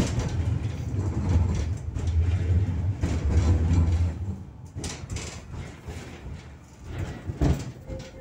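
71-623-04 tram running along the rails, heard from inside: a loud low rumble of wheels and running gear that falls away about four seconds in, followed by a few sharp knocks, the strongest near the end.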